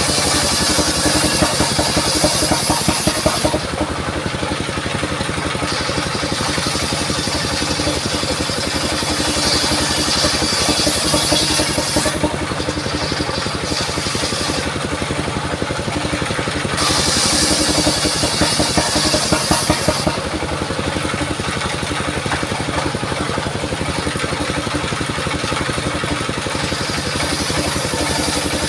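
Engine-driven portable circular saw running steadily while its blade cuts mahogany. A bright, high-pitched cutting noise rises over the engine's drone three times and fades between cuts.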